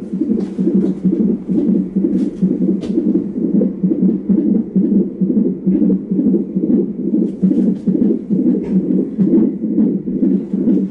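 Fetal heart monitor's Doppler speaker playing the baby's heartbeat during labor: a fast, even whooshing pulse of about two to three beats a second.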